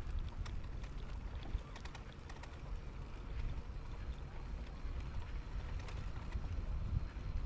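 Wind rumbling on the microphone with tyre and road noise from a moving e-bike, broken by scattered small clicks and rattles.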